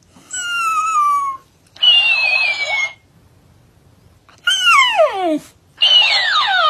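Shiba Inu dog giving four high-pitched, whining cries, each about a second long and sliding down in pitch. The third drops steeply, and the last follows close behind it.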